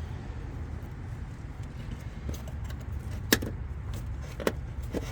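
Two sharp clicks about a second apart, the first louder, over a steady low rumble.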